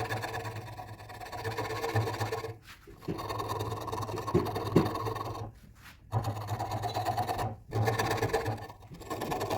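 Wood lathe motor running with a steady hum while a tool cuts or sands the spinning wood, a rasping scrape over the hum, in stretches broken by brief stops.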